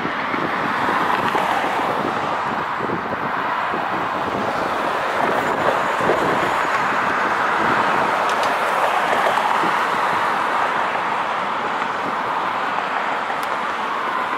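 Steady urban traffic noise: a constant wash of vehicle sound with no distinct events.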